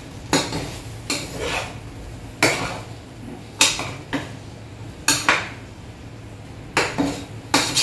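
A spoon scraping and knocking against a pan while fried rice is stirred and mixed, about ten short uneven strokes over a low steady hum.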